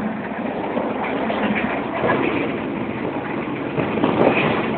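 Steady running noise of an economy-class passenger train, heard from inside a moving carriage.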